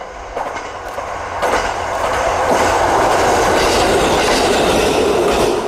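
LEGO model of a KiHa 150 railcar running on plastic LEGO track, its wheels and motor making a steady rattling clatter that grows loud about a second and a half in as it comes close.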